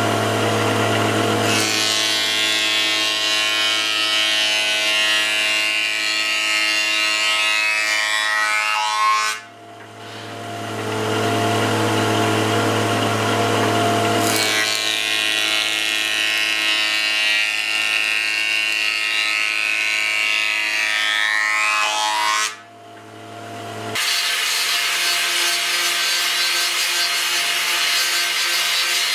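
Planer-thicknesser on a combination woodworking machine running steadily, as two boards are fed through it, each cut lasting several seconds with a brief drop in sound between them. About 24 seconds in, the sound cuts to an angle grinder with a sanding disc whirring against a wooden board.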